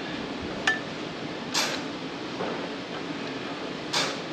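A single light metal clink as a bolt is started by hand through a clutch pressure plate into the flywheel, with two short hissy scrapes about a second and a half in and near the end.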